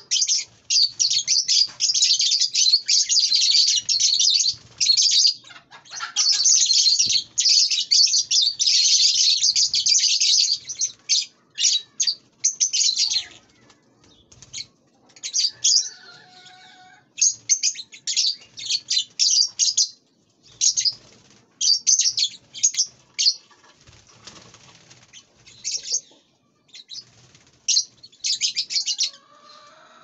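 Small pet parrots chattering: dense, rapid high-pitched chirps, almost unbroken for the first dozen seconds, then in shorter bursts with pauses between.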